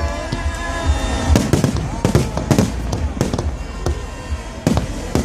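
Aerial fireworks bursting in an irregular string of sharp bangs, several a second at times, with crackling between them.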